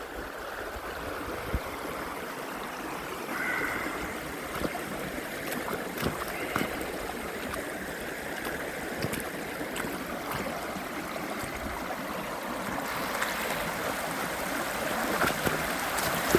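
Creek water running steadily over a shallow rapids.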